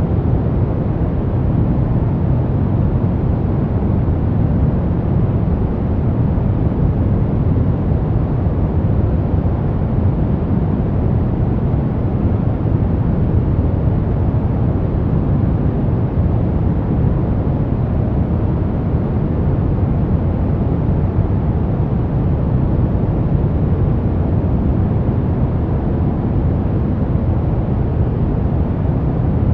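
Steady noise track sold as white noise: an even, unchanging rush, weighted toward the deep end rather than hissy.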